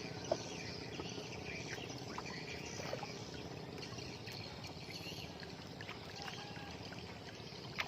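Outdoor riverbank ambience: a steady noisy hiss with scattered short chirps and a few light clicks, the sharpest about a third of a second in.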